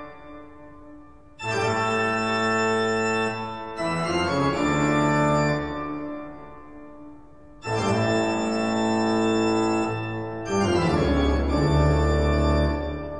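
Soundtrack music of slow, held organ chords. A new chord enters sharply every few seconds and fades away before the next.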